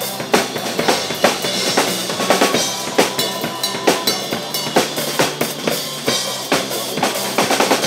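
Acoustic drum kit played live in a busy, driving groove: rapid snare and tom hits with kick drum and crashing cymbals, over a recorded backing track of the pop-rock song.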